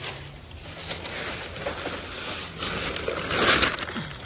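Plastic sheeting and heavy paper wrapping rustling and crinkling as they are pulled off a crate engine, loudest about three seconds in.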